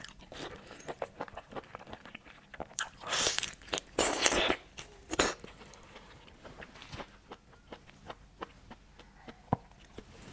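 Close-up eating of a large whole red prawn: the shell crunching and crackling as it is bitten and pulled apart, with two louder crunching stretches about three to four and a half seconds in, then scattered small clicks and crackles.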